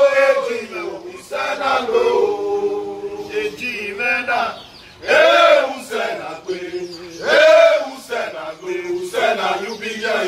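A group of men singing a chant together, in drawn-out phrases that rise and fall, the loudest about halfway through and again near the end.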